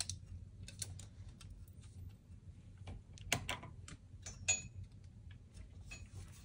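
Faint, scattered clicks and taps from a small circuit-board assembly on metal standoffs being handled and turned over in the hands, with the loudest clicks about three and a half seconds in.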